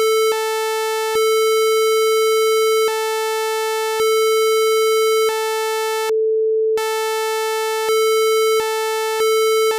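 Mock Emergency Alert System attention signal: a loud, steady electronic tone with a second, higher tone switching on and off every second or so, dropping out briefly about six seconds in.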